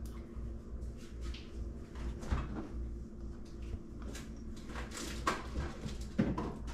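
Scattered light clicks and knocks of kitchen handling: a spoon scraping honey from a plastic measuring cup into a glass bowl, and a refrigerator door opened with things moved about inside it. The sharpest knocks come about halfway through and just before the end.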